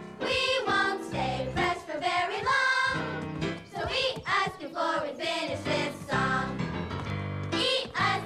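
Children singing a cheerful Thanksgiving pageant song as a group, with instrumental backing.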